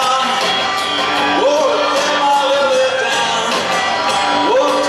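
Live band music from an electric guitar, upright bass and drum kit playing together, with a pitched line that rises into a long held note about every three seconds.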